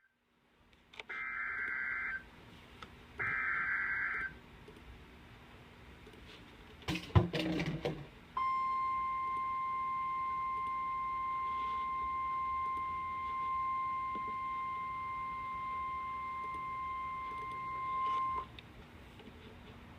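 Two one-second bursts of warbling EAS SAME digital header data, about a second apart. A short, loud crackle of static follows around seven seconds in. Then the NOAA Weather Radio 1050 Hz warning alert tone sounds steadily for about ten seconds and cuts off abruptly, signalling the start of a new warning message.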